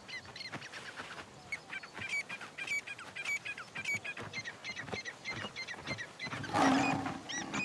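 Animal calls: a rapid run of short, high, hooked chirping calls, several a second, getting louder and noisier near the end.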